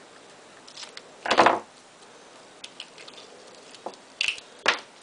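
Scissors snipping through washi tape once, about a second in, followed by a few light clicks near the end as the work is handled.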